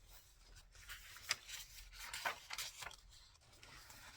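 Paper and card rustling, sliding and tapping in irregular short bursts as tags and ephemera are handled and slipped into journal pockets, with the sharpest sounds a little after one second and about two seconds in.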